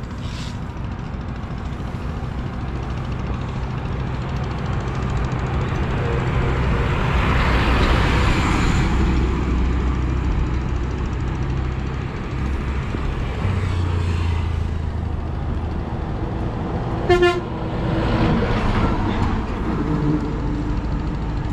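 Road traffic passing close by: a steady low engine rumble, one vehicle swelling past about eight seconds in, and a short horn toot about seventeen seconds in.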